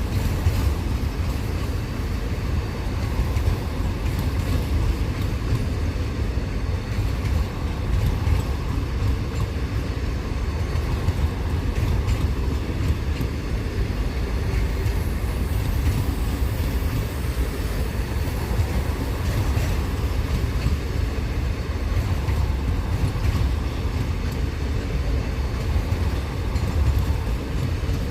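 Freight train of car-carrier wagons rolling by, a steady low rumble.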